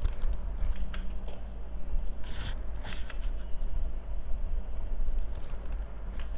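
Steady low hum of the recording background, with a few short soft clicks and taps of a computer keyboard and mouse as an entry is made into a form field, the clearest about 1, 2.5 and 3 seconds in.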